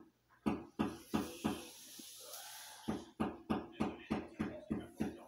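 Regular dull thumps, about three a second, with a gap of about a second and a half in the middle.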